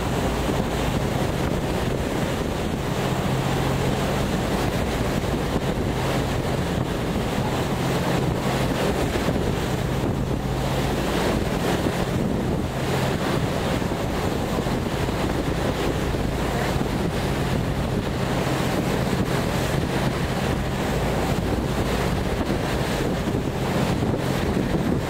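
Wind buffeting the microphone on the deck of a moving tour boat, over the steady low drone of its engine and the rush of water along the hull.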